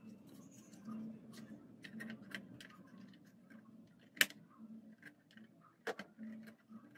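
Light plastic and metal clicks and knocks as an Xbox console's optical disc drive is handled and set into the opened console chassis. There is a sharp click about four seconds in and another near six seconds.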